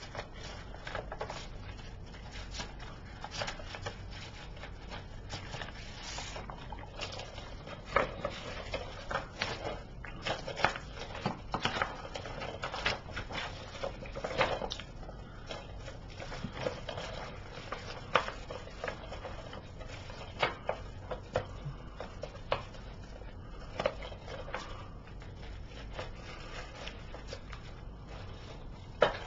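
Hands working a plastic DVD case and its paper cover insert, scattered clicks and crinkles as the cover, put in backward, is turned around in the case's clear sleeve.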